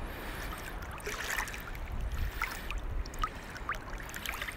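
Choppy shallow seawater lapping and trickling, with scattered small drips and splashes over a low rumble.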